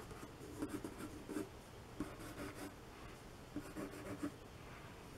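Pencil sketching on watercolour paper: faint, scratchy strokes of the lead across the sheet, coming in a few short runs.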